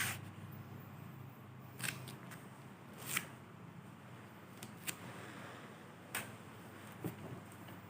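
A series of about six short, sharp noises, spaced a second or so apart.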